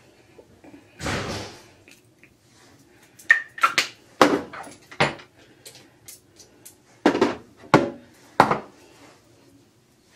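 Sharp clacks and knocks of small skincare bottles and lids being handled and set down on a hard bathroom surface, in two quick groups of four or five, after a short rush of noise about a second in.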